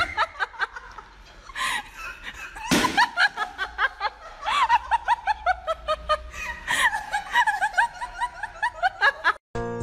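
People laughing hard in long runs of quick, high-pitched 'ha-ha' pulses with gasping breaths between, cut off near the end as music comes in.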